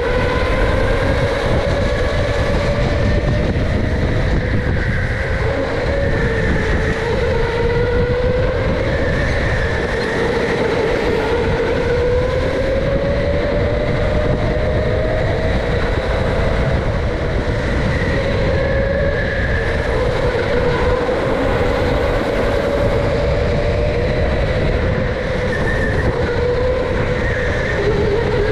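Electric go-kart running flat out, its motor whine rising and falling in pitch with speed, over a steady low rumble of the kart's chassis and tyres on the concrete track, heard from a camera mounted on the kart.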